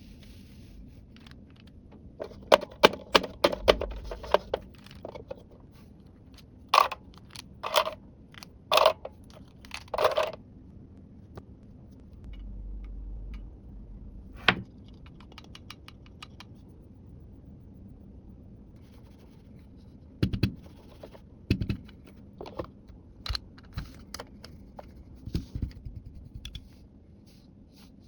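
Small plastic toy pieces being handled and set down, making scattered clicks, taps and light scrapes. There is a quick run of clicks early on, four louder knocks about a second apart, and more taps near the end.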